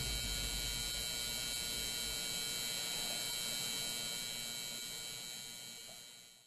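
Steady electrical hum, the tail of an intro sound effect, fading slowly and dying away near the end.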